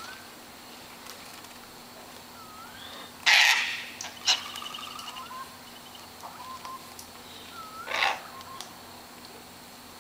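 Sulphur-crested cockatoos calling: a loud harsh screech about three seconds in, a shorter one just after, and another about eight seconds in, with softer whistled notes and a brief trill between them.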